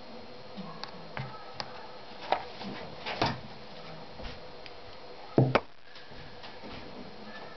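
Metal brake parts handled and set down on a table: a brake caliper and its steel piston give a few light clicks and knocks, with the loudest, a quick double knock, about five and a half seconds in.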